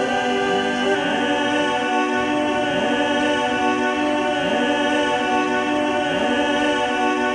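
Ambient background music of held, layered chords, with a short rising sliding note coming back about every second and a half.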